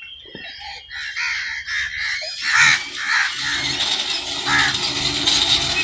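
Crows cawing repeatedly. About two and a half seconds in, a gush of water starts pouring out of the bicycle-driven tube well's outlet pipe and splashing into the well, over a steady low hum.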